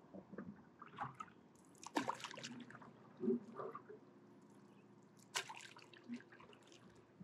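Stand-up paddleboard paddle strokes in calm lake water: quiet splashes as the blade dips and pulls, with drips and trickles from the paddle between strokes. The two clearest splashes come about two and five seconds in.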